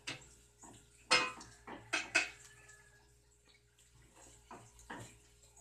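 Metal utensil clinking and scraping against a stainless steel ice-cream pot set in crushed ice, as soft ice cream is scooped out into a mug: a few short sharp clinks, the loudest about a second in and again about two seconds in.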